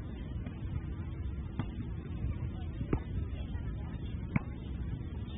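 Three sharp smacks of strikes landing on a handheld kick pad, about a second and a half apart, the last one the loudest, over low wind rumble on the microphone.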